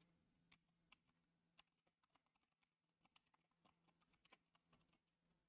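Faint computer keyboard keystrokes, a scatter of short irregular clicks as a name is typed, over a faint steady low hum.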